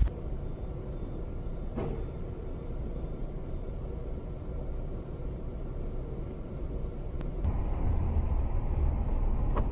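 Moving car: a steady low road rumble that grows louder about seven and a half seconds in.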